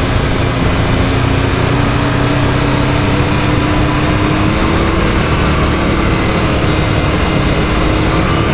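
Can-Am Maverick X3 side-by-side running along the trail, its engine note rising slowly and steadily as it speeds up, over a continuous rush of noise.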